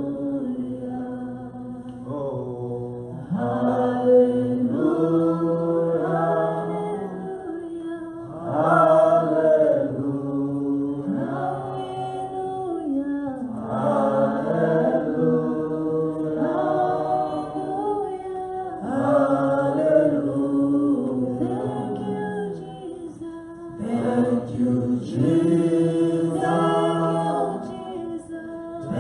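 Group of voices singing together in long held notes, phrase after phrase, as worship singing in a church service.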